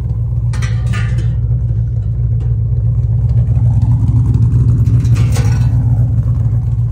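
Modified Shelby GT500's supercharged V8 idling steadily with a deep, even exhaust note.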